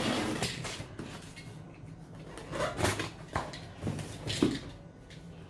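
Utility knife slicing through packing tape on a cardboard box, then the box being turned on a table with a few scrapes and knocks around the middle.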